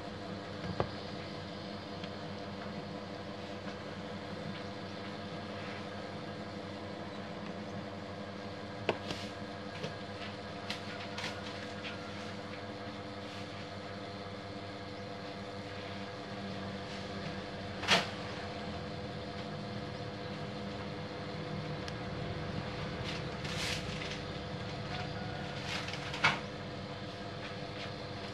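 Steady machine hum with a few sharp clicks and knocks of hard plastic parts of a copier unit being handled; the loudest knock comes about eighteen seconds in.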